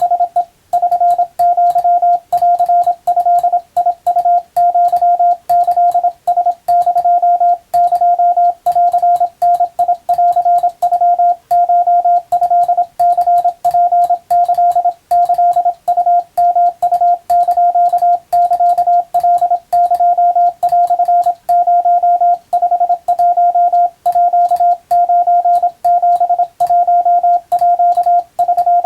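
Morse code sent as a single steady CW tone, keyed on and off without pause in a steady run of dots and dashes, with a slight click at each keying. It is Japanese wabun code, sent as receiving practice.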